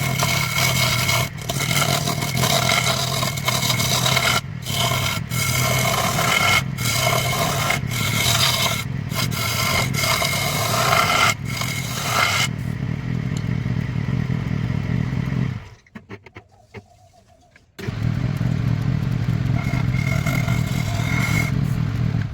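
Wood lathe running with a steady motor hum while a turning tool scrapes the spinning wood, the cutting noise breaking off briefly several times. About twelve seconds in the scraping stops and the lathe runs on alone. The sound then nearly drops out for about two seconds before the lathe hum returns.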